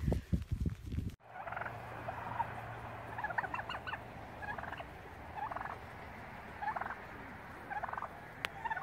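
A second of low thumps from a cockatoo beating its wings close by, then a cut to a displaying domestic turkey tom gobbling, short rattling gobbles about once a second.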